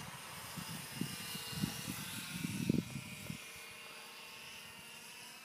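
Wind buffeting the microphone in gusts for about the first three seconds, over the faint steady buzz of a HobbyZone Mini Super Cub's small electric motor and propeller in flight, which carries on alone once the gusts drop.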